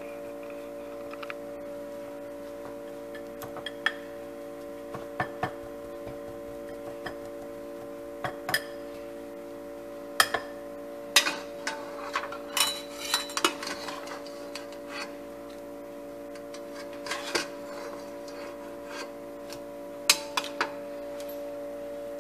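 Metal potato masher pressing boiled potatoes in a glass bowl, clinking and knocking against the glass at irregular intervals, most often in the middle of the stretch. A steady hum runs underneath.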